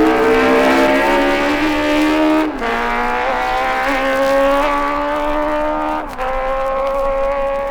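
MV Agusta four-cylinder racing motorcycle at full throttle, a high-pitched engine note climbing steadily in pitch. The note drops sharply twice, about two and a half and six seconds in, as the rider changes up a gear, then climbs again.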